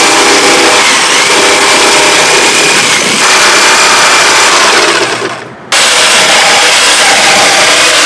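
Electric grinder running loud and steady against steel, a dense hissing grind with a faint steady whine. About five and a half seconds in the sound briefly fades, then cuts straight back in.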